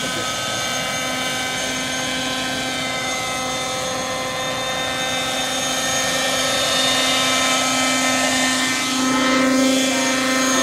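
Hirobo JetRanger radio-controlled model helicopter's glow engine and rotors running steadily, a whine of several steady tones. It grows louder in the second half as the helicopter comes down close.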